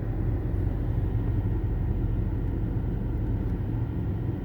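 Steady low rumble of a car running, with no sudden events.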